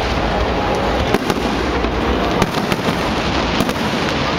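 Fireworks display: about seven sharp cracks and bangs of aerial shells bursting at irregular intervals, over a steady loud background din.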